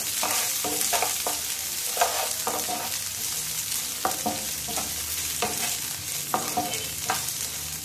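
Chopped green chillies and garlic sizzling in hot oil in a nonstick frying pan, with a wooden spatula repeatedly scraping and knocking against the pan as they are stirred.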